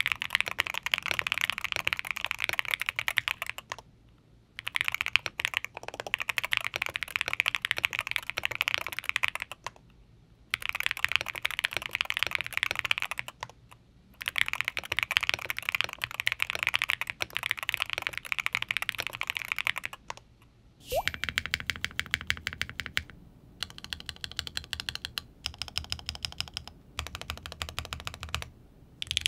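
Fast typing on a KBDfans Tofu60 Redux 60% mechanical keyboard with an FR4 plate and Gateron Jade switches, in bursts of several seconds with short pauses. About 21 seconds in, it changes to typing on a Frog Mini keyboard, whose key clacks are lower and duller.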